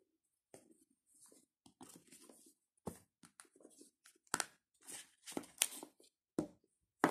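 Hands lifting a smartphone out of its cardboard box tray: irregular rustling, scraping and light clicks of cardboard and phone being handled, with sharper knocks in the second half.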